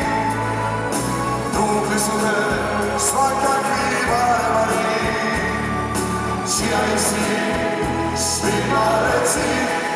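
Male voices singing a Dalmatian klapa song live, over instrumental backing with repeated cymbal-like percussion hits.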